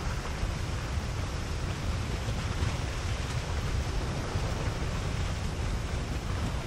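Basalt lava river flowing fast, a steady rushing, surf-like noise with a low rumble and a few faint crackles, mixed with wind buffeting the microphone.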